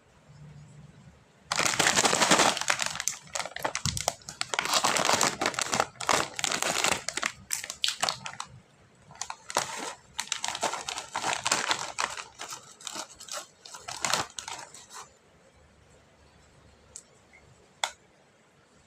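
Snack wrapper packaging crinkling as it is handled, in several long bouts of dense crackle that stop about three quarters of the way through, followed by a couple of faint clicks.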